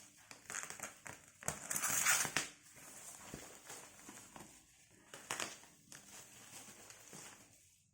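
Parcel packaging crinkling, rustling and crackling as it is torn open by hand, loudest for about a second near the start and with another short burst past the middle.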